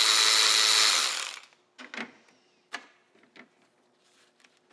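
Cordless electric ratchet spinning steadily as it loosens a radiator hose clamp, stopping about a second in. A few light clicks and knocks follow as the clamp and hose are handled.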